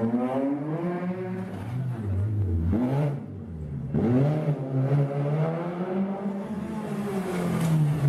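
Rally car engines revving hard as the cars accelerate past, pitch climbing as they pull away. There is a short lull about three seconds in, then the next car's engine rises.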